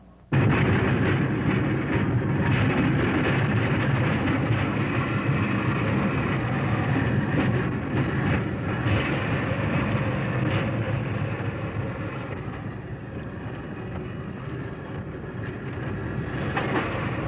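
Pacific Electric Red Car, an electric interurban rail car, running along the track. It makes a steady rumble with a few sharp clacks. The sound starts abruptly about half a second in and eases off somewhat in the last few seconds.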